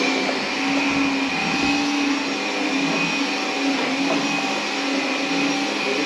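Vacuum cleaner motor running steadily, a constant hum with a high whine over it.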